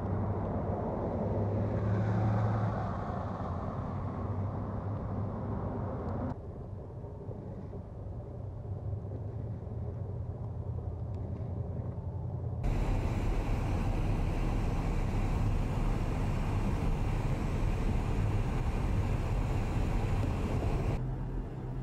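Steady motor-vehicle engine and tyre noise on snow-covered roads, changing abruptly at edit cuts. The louder stretch from about halfway on is a heavy snowplow truck driving on a slushy highway.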